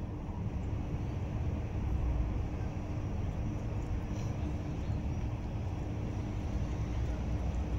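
Steady low background rumble, with a faint constant hum above it and a few faint ticks.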